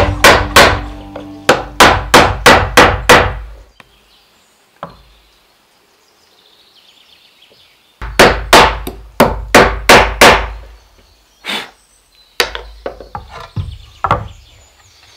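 Hammer driving nails into a wooden board: quick runs of sharp blows, about three a second. The first run stops after a few seconds, a second run starts about halfway through, and lighter taps follow near the end.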